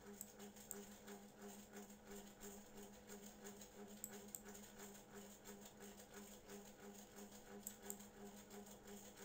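Near silence: a faint steady low hum with soft scattered ticks.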